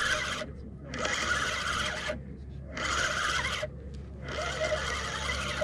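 Penn spinning reel being cranked under load from a hooked fish, its gears whirring in spells of about a second with short pauses between them, as the line is regained.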